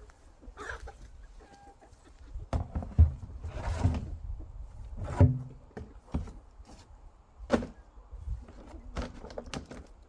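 Irregular knocks and thumps, loudest about three and five seconds in, with chickens clucking now and then.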